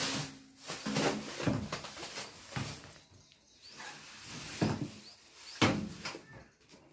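A new microwave oven being handled and inspected: knocks, clicks and rubbing as it is turned and its parts are moved, with a few sharp knocks about two and a half, four and a half and five and a half seconds in.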